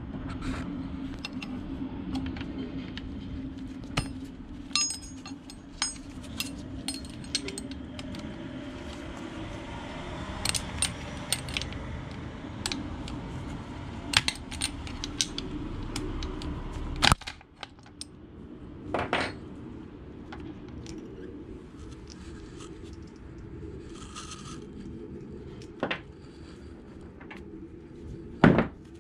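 Hand tools and small metal parts clinking and tapping now and then, over a steady low hum that cuts off suddenly a little past halfway.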